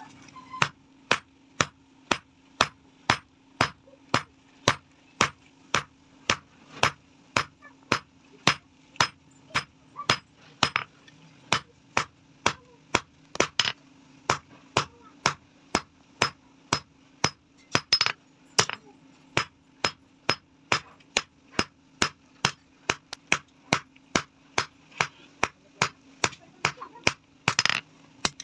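Hand hammer striking a red-hot iron rod on an anvil, forging it into shape: steady ringing blows at about two a second. A faint steady hum runs underneath.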